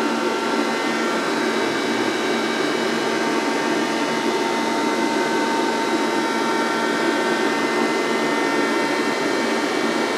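EMCO Emcoturn 365 CNC lathe running: a steady motor whir with several faint steady whines over it.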